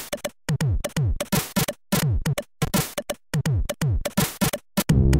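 Commodore 64 SID chip music (8580 chip, emulated): a chiptune drum pattern of deep hits that drop sharply in pitch and hissy noise hits, with short silent gaps between them. Just before the end a bass line and chords come in and the sound fills out.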